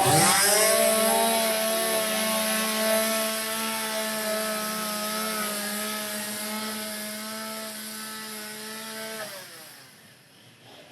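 A power tool's motor spins up, runs at a steady high speed, then winds down and stops about nine seconds in.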